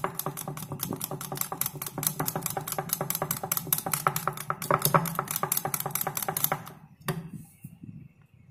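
Wire balloon whisk beating a wheat-flour batter in a ceramic bowl: a fast, even clicking of the metal wires against the bowl. It stops about seven seconds in, with one last knock. The batter is being mixed smooth and lump-free to a thick bajji-batter consistency.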